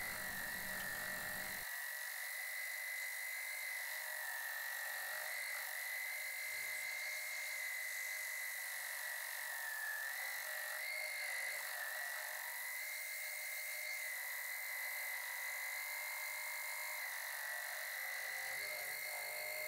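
Wood lathe spinning a large disc while a sanding board is pressed flat against its face: a steady high-pitched whine that wavers slightly now and then, over a hiss.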